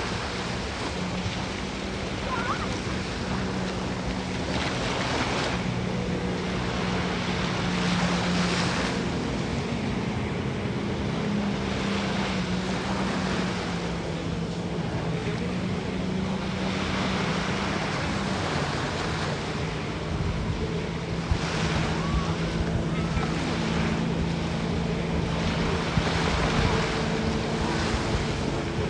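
Surf washing in at the water's edge, over the steady drone of a jet ski engine pumping water up a hose to a flyboard. The engine's pitch wavers slightly as the rider hovers.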